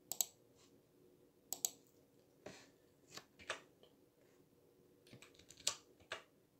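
Quiet, scattered clicks of a computer mouse and keyboard, some in quick pairs and a cluster near the end, over a faint steady hum.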